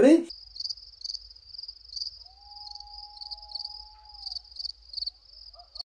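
Cricket chirping, the stock 'crickets' sound effect for an awkward silence, standing here for a question that went unanswered. The chirps pulse steadily about twice a second, with a faint steady tone in the middle.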